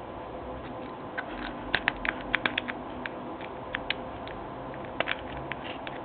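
Irregular light metallic clicks and ticks of a lock pick and tension wrench working in the keyway of a Medeco high-security lock cylinder, bunched in quick runs about two seconds in and again near the end.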